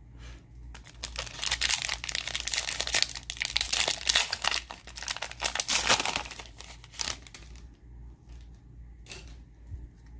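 Shiny plastic wrapper of a trading-card pack crinkling and tearing as it is pulled open by hand, for about six seconds, then a short rustle of the cards about nine seconds in.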